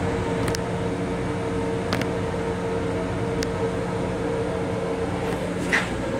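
Steady hum and rumble inside an MTA Long Island Rail Road M7 electric railcar, with a constant drone. A few small clicks and one louder knock near the end.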